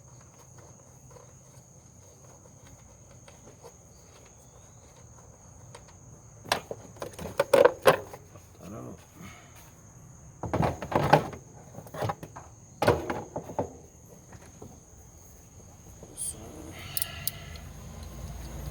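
Hand tools and loose parts knocking and clanking in a car's engine bay: a run of sharp knocks in the middle, the loudest about eight and eleven seconds in. A steady high thin tone runs underneath throughout.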